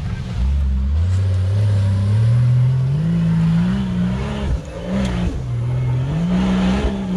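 Competition 4x4's engine revving hard under load as it climbs a steep muddy hill. The pitch climbs steadily for the first three seconds or so, then surges up and down several times as the throttle is worked.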